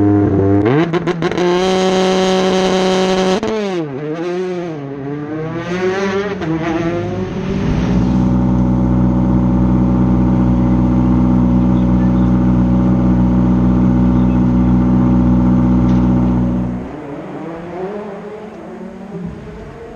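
Rally car engine revving: the pitch climbs, holds, swings up and down several times, then holds a steady high note for several seconds before dropping away near the end. A few sharp crackles come in the first seconds.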